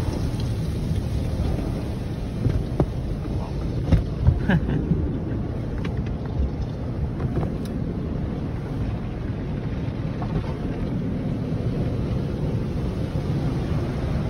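Automatic car wash heard from inside the car's cabin: a steady low rumble of water spray and washing equipment working over the bodywork, with a few sharp knocks and taps between about three and eight seconds in.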